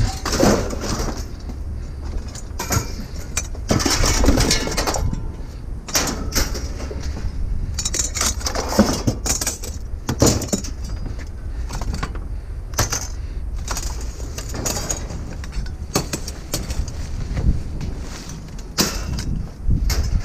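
Scrap metal clanking and rattling as it is handled and worked on, in repeated short knocks and clatters over a low steady rumble.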